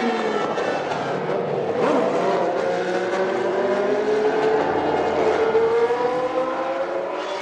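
Formula One race car engines running at high revs, several engine notes overlapping, their pitch sliding up and down; about two seconds in one car goes past, its note dropping sharply.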